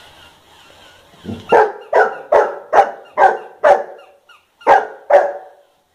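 Golden retriever barking at a battery-powered toy dog: eight sharp, loud barks about two a second, with one short pause before the last two.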